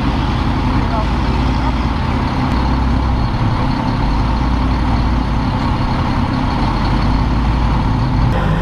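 Heavy wheeled armored military truck driving over rough, muddy ground, its engine running with a steady low rumble.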